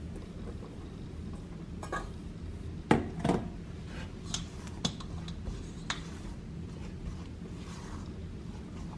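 Stainless steel mixing bowls and a silicone spatula clinking and knocking as flour is tipped from one bowl into the other and stirred in. A sharp knock comes about three seconds in, followed by a few lighter taps.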